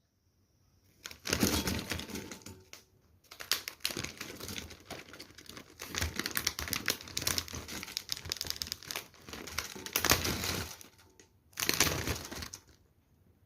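Food being handled in a kitchen, with several runs of crinkling and rapid clicking lasting a few seconds each and short pauses between them.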